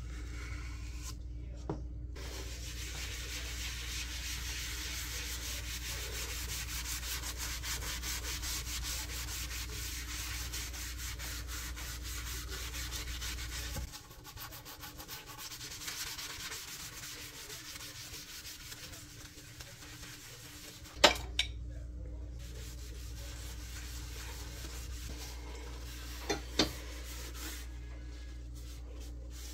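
A sponge scrubbing a sink basin and its metal drain with The Pink Stuff abrasive cleaning paste: a steady, scratchy rubbing. There are a few sharp knocks in the second half.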